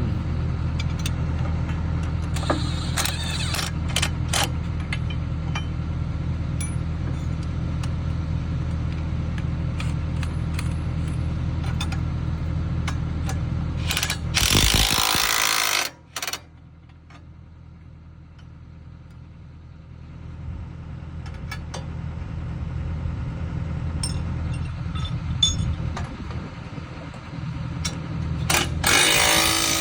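Kobelco excavator's diesel engine running steadily, with scattered clicks and knocks. About 14 s in, a loud rushing noise takes over for a couple of seconds, then the sound drops much quieter and slowly builds back up, and a second loud rush comes near the end.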